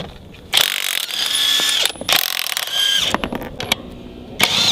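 Cordless 21V impact wrench hammering on a motorcycle's rear axle nut in bursts of about a second, with short pauses between, twice and then again near the end.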